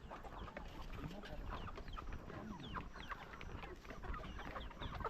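A flock of young chickens calling: many short, overlapping peeps and clucks.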